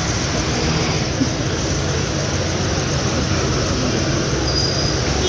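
Steady, loud rumble of a WDP4 diesel locomotive's two-stroke V16 engine running at the head of a train.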